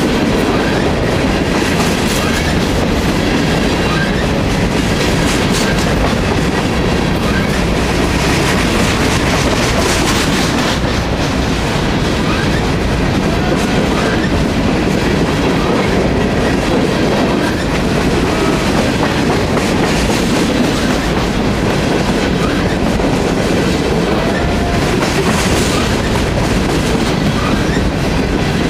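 Freight train of covered hopper cars rolling past close by: a steady, loud rumble of steel wheels on the rails.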